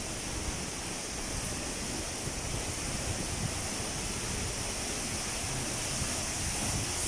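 Waterfall rushing steadily, a constant hiss of falling water that grows slightly louder near the end.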